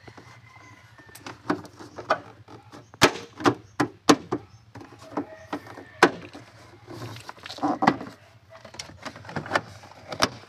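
Plastic interior trim panels of a Suzuki Celerio being pressed back into place by hand: an irregular run of sharp clicks and knocks as the panel's clips snap into the body and it is tapped home, a few of them much louder than the rest.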